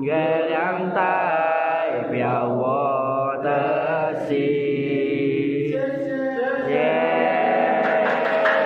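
A group of young men's voices singing together in unison, holding long, gliding notes; clapping starts near the end.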